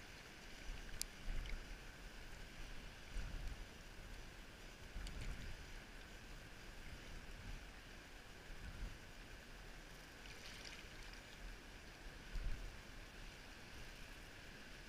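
Wind buffeting the camera microphone in irregular low gusts, over faint lapping water at the shore rocks. One sharp click about a second in.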